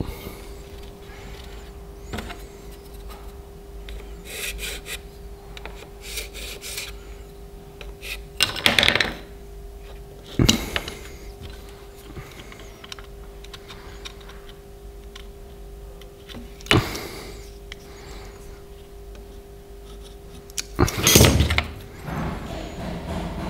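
A wooden knife handle and blade being handled on a workbench: the handle is worked on and off the knife's tang with scraping rubs, and parts are set down with four sharp knocks, the loudest near the end. A steady hum runs underneath.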